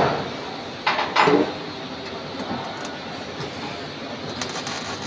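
Two hammer blows on metal about a second in, then a steady low hum of workshop background.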